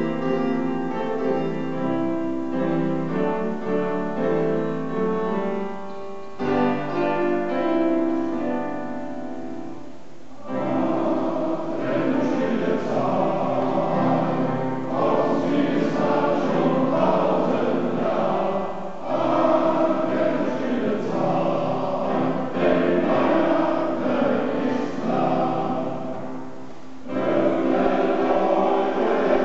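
Male-voice choir singing, with long held chords for the first ten seconds, broken by short pauses about six and ten seconds in, then a fuller, more moving passage.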